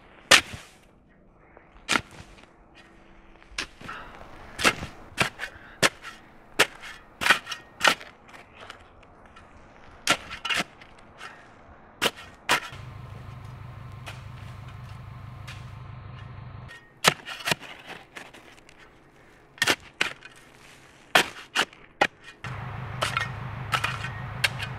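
Shovel blade striking and digging into soil, over and over in sharp, irregular strokes about once a second. A low steady hum comes in about halfway, breaks off, and returns near the end.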